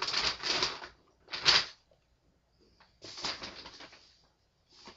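Rustling and crinkling of handled items, in four short bursts with quiet gaps, the second about a second and a half in the loudest.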